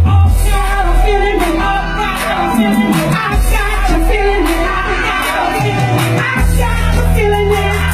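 Live zydeco band playing loudly: drums and a deep, held bass line with a voice singing over them.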